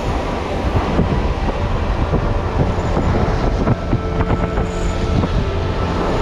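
Wind buffeting the microphone over waves washing across a rocky shore, a steady low rumble. About four seconds in, a spinning reel is cranked briefly, adding light clicking.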